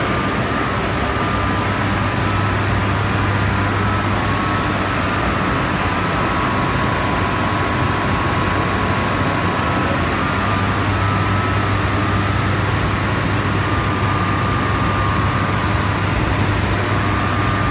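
An 850 kW Francis hydro turbine and its generator running: a loud, steady rushing noise with a low hum and a few high, steady whining tones.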